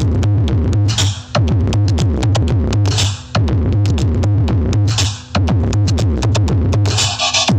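Loud electronic dance music with a drum-machine beat and a very heavy bass line, played through a big sound-system rig in a sound-system battle. The beat breaks off briefly about every two seconds.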